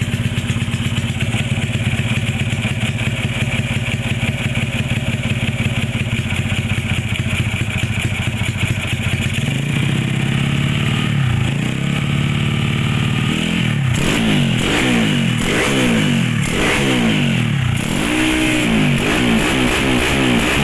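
Honda C70's bored-up single-cylinder four-stroke engine running on a test ride just after being rebuilt. It holds a steady note for about ten seconds, then the pitch swings, and over the last several seconds it revs up and down again and again.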